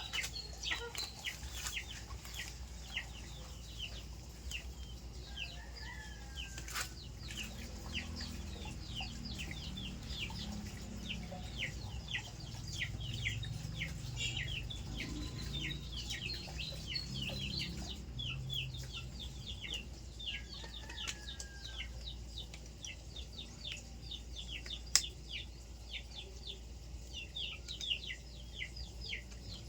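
Chickens in the background: a continuous stream of short, high, downward chirps, with lower clucking through the middle stretch. There is one sharp click near the end.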